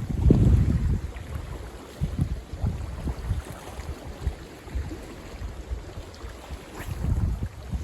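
Strong, gusty typhoon wind buffeting the microphone in uneven low rumbles, heaviest just after the start and again near the end.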